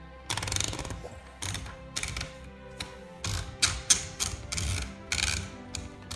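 1963 Brother Valiant manual typewriter's platen being turned by hand to feed in paper, its ratchet clicking in a series of short bursts.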